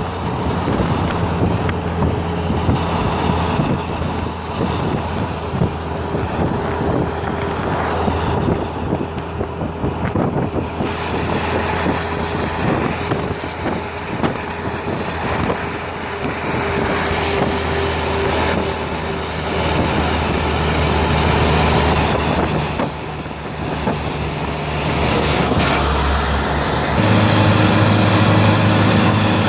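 Route bus running on the road, its engine hum steady and shifting to a new pitch a few times as it changes speed or gear.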